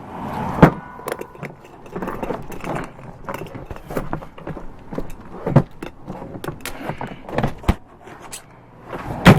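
Padlock and steel security cable being handled: an irregular run of small metallic clicks and rattles, with a few sharp knocks, one about half a second in, one in the middle and one near the end.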